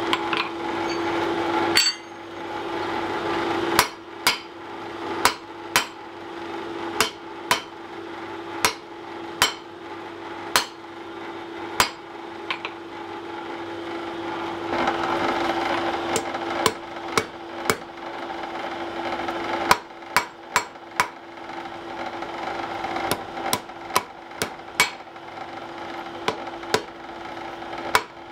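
Hand hammer striking a red-hot iron bar on an anvil in a long series of sharp, ringing blows, some single and some in quick pairs and runs. A steady hum runs underneath.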